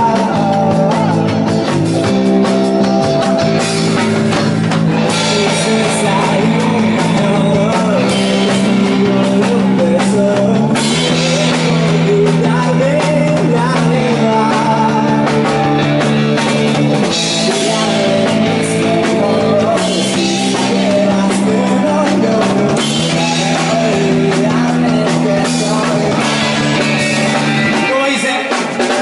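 Indie rock band playing live, with electric guitars, drums and a singer.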